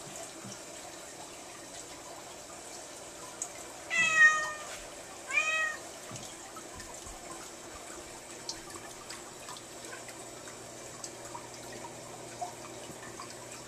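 Domestic cat meowing twice, two short high calls about a second apart, the second rising and falling in pitch.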